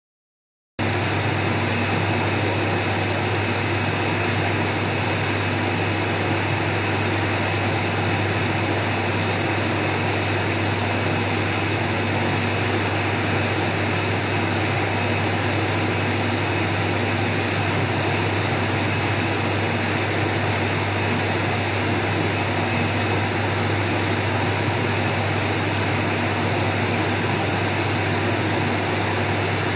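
Aquarium pumps and aeration running: a steady machine hum and hiss with a thin, constant high-pitched whine, starting about a second in.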